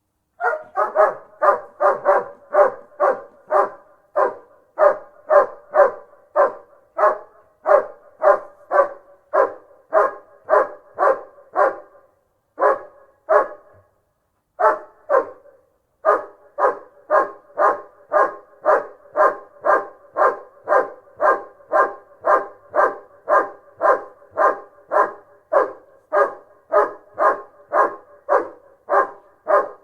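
German Shepherd barking over and over in a steady, fast series, about two barks a second, with a couple of short pauses around the middle.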